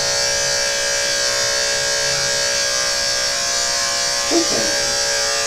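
Andis AG electric dog clippers running with a steady hum as they trim a West Highland White Terrier puppy's coat. A short voice sound comes about four seconds in.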